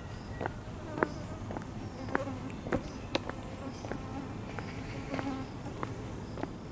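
Walking footsteps on stone paving blocks, about two steps a second, over a steady background of insects buzzing.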